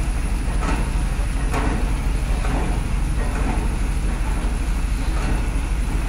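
Heavy diesel construction machinery running steadily, a low pulsing drone, with a few faint knocks about a second apart early on.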